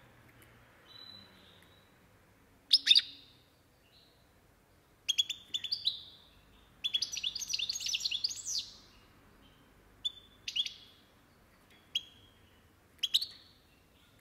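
European goldfinch twittering in short bursts of sharp, high chirps, with one longer run of rapid twittering song about seven seconds in.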